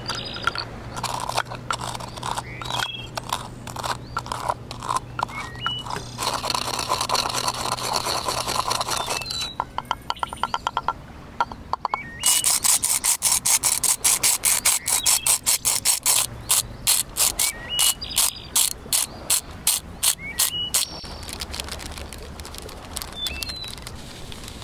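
Bamboo pestle pounding and grinding brown sugar cubes in a bamboo mortar, with runs of sharp wooden knocks and grinding. About halfway through comes a stretch of strong, regular knocks, about four or five a second, that fade over several seconds as the ground sugar is tapped out of the mortar. Short bird chirps recur in the background.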